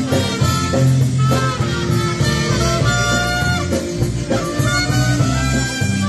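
Live polka band playing an instrumental passage: held melody notes over a steady bass line.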